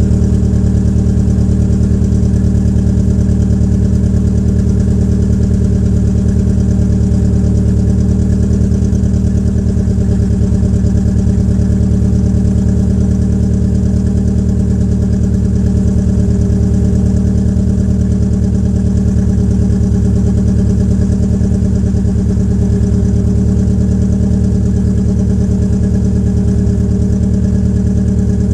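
Peugeot 807's EW10J4 2.0-litre four-cylinder petrol engine idling rough when cold, its exhaust open with the rear silencer removed. The uneven idle is the sign of tight valve lifters, which the owner calls a typical trait of PSA EW engines.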